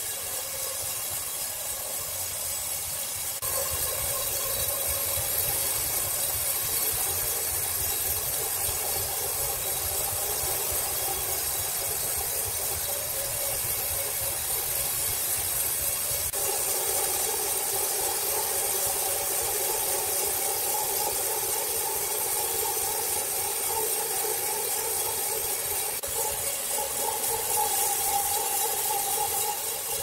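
Horizontal band sawmill cutting lengthwise through a large log: a steady hissing whine of the blade in the wood over a motor hum. The sound shifts abruptly a few seconds in and again about halfway through, becoming louder and more tonal.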